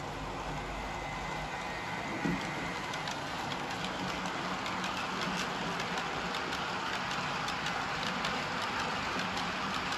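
HO scale model train, a steam locomotive hauling loaded hopper wagons, rolling along the track: a steady hiss of wheels on rails with many small clicks over the rail joints. A single knock just over two seconds in.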